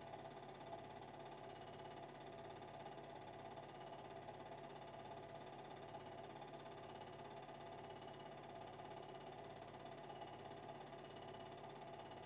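Faint steady hum and hiss with a soft regular pulse a little faster than once a second. The film is silent, so this is only background noise on its soundtrack.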